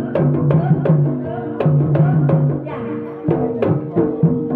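Jaranan accompaniment music: drums and struck tuned percussion playing a quick beat of sharp strokes, each leaving sustained ringing notes.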